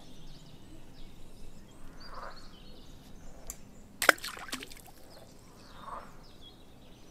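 Quiet outdoor ambience with faint, scattered high chirps and a single sharp click about four seconds in.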